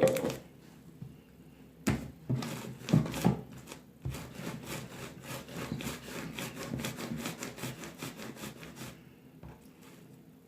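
Hands squishing and kneading a stiff slime: a few sharp sticky pops at first, then a dense run of quick small clicks and squelches that dies down near the end.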